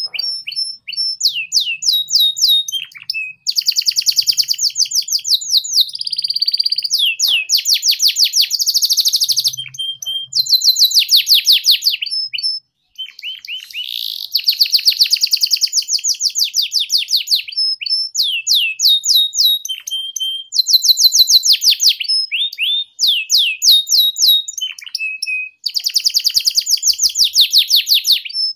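Domestic canary singing a long, fast chattering 'ngeriwik' song of rapid trills and repeated chirping phrases, with brief pauses about three, thirteen and twenty-five seconds in.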